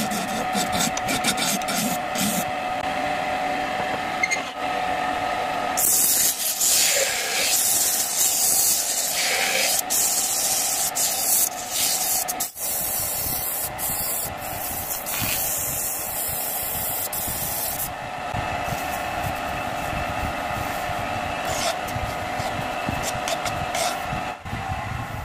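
Wood lathe running, with a gouge scraping and cutting the spinning acacia wood, then sandpaper hissing against the turning piece.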